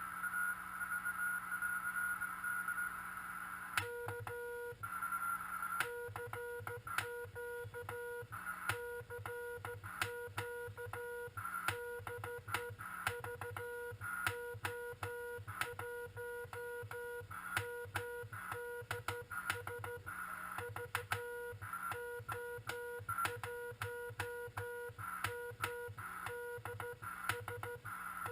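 Morse code (CW) from a Frog Sound QRP CW transceiver on 40 m: receiver hiss with a steady tone, then about four seconds in a keyed tone begins switching on and off in dots and dashes, with a click at each key-down.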